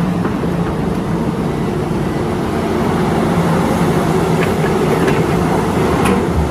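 Steady engine rumble with a constant low hum, an excavator engine sound effect played for a toy excavator.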